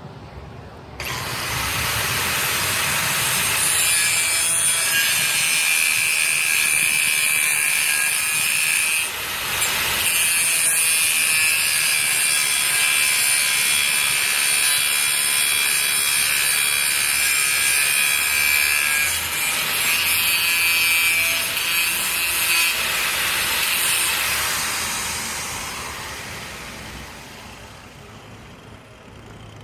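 Angle grinder with a metal cut-off disc cutting through the protruding end of an anchor bolt: a loud, high-pitched grinding with a steady whine starts about a second in, dips briefly around nine seconds, and carries on until about 24 seconds, then fades as the disc winds down.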